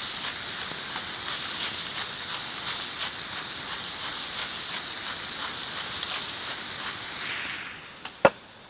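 Diced vegetables sizzling steadily as they fry over a high flame in a cast-iron kazan. The sizzle fades near the end, and a single sharp click sounds just before it ends.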